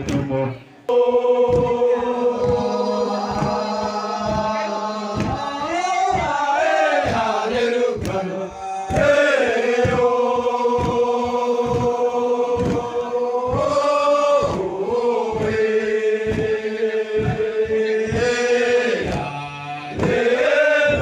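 Manggarai men chanting together in long held notes, led by a voice on a microphone, over a steady low beat of about two strokes a second.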